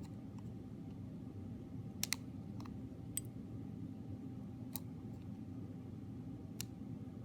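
A few sharp, isolated clicks of small metal tools, tweezers and soldering iron tip, tapping against the iPod's circuit board during desoldering, including a quick double click about two seconds in. A steady low hum runs underneath.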